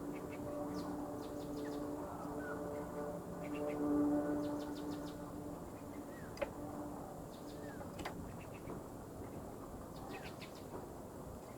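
Birds chirping in short high bursts again and again, over a steady low hum that fades out about two-thirds of the way through.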